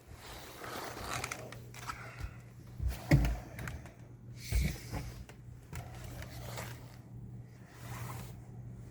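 Blizzard wind gusting in irregular surges over a steady low hum, with two heavier thumps about three and four and a half seconds in.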